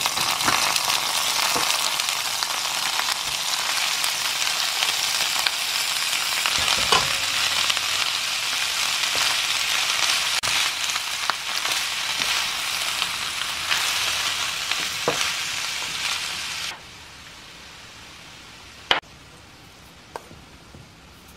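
Blanched bracken fern and julienned vegetables sizzling steadily as they are stir-fried with chopsticks in sesame oil in a nonstick pan. The sizzle cuts off suddenly about three-quarters of the way through, leaving a couple of light clicks.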